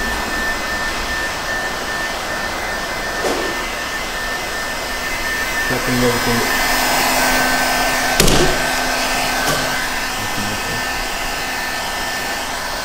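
Electric heat gun blowing hot air steadily onto window tint film on the outside of a car's curved rear glass, heat-shrinking the film to the glass's shape. A single sharp click comes about eight seconds in.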